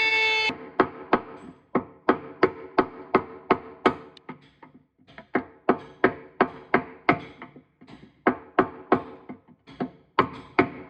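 Repeated hammer blows, sharp ringing knocks about three a second with a few short pauses.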